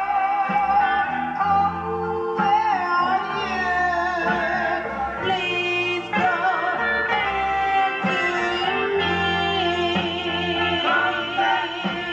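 A recorded song with a singing voice over a steady bass line, played from a phone through a 1955–57 Seeburg HFMA1-L6 tube jukebox amplifier and a vintage Realistic speaker. The amplifier is working after a full recap.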